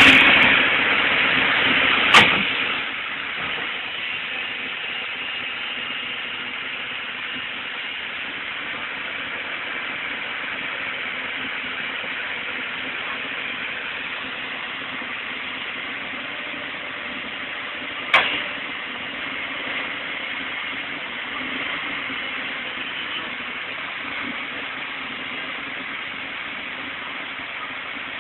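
Tracked excavator's diesel engine running steadily, louder for the first couple of seconds, with two sharp clicks, one about two seconds in and one much later.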